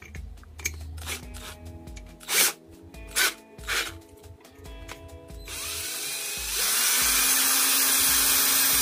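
Clicks and knocks as a cordless drill's keyless chuck is hand-tightened on a grinder arbor adapter. About five and a half seconds in, the drill motor starts and spins a cutting disc on the adapter, reaching a steady, loud running speed with no load about a second later.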